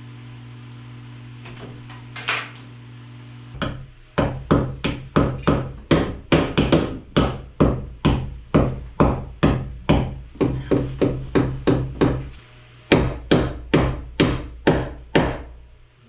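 Hammer driving nails into a wooden ceiling joist, a steady run of sharp blows about two to three a second with a brief pause about three-quarters through, fixing a ceiling electrical box in place.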